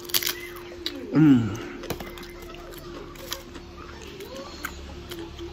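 Crunchy nacho-topped pizza being bitten and chewed, with sharp crunches and clicks, the loudest just after the start. A short, loud falling vocal sound comes about a second in.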